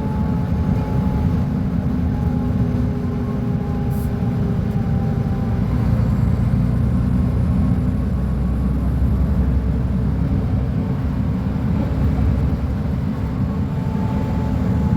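Mercedes-Benz O500UA articulated bus's diesel engine running with a steady low drone that grows a little heavier around the middle. A faint whine sits above it and fades out in the first half.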